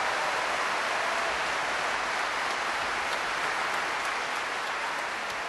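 Large audience applauding, a steady dense clapping that eases off slightly toward the end.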